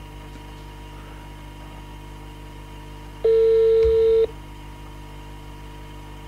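Telephone ringback tone: one steady beep about a second long, a little past the middle. It is the sign that the number dialled is ringing and the call has not yet been answered.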